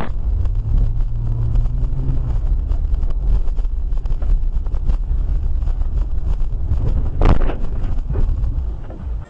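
Low, steady rumble of a car on the road, heard as dashcam audio, with a single short, sharp bang about seven seconds in.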